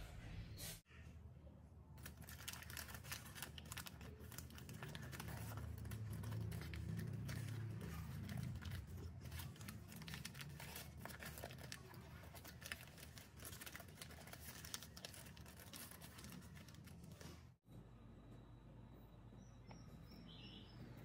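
Parchment paper liner crinkling and crackling as it is peeled off a small baked cheesecake by hand, a dense run of irregular crackles that stops suddenly near the end.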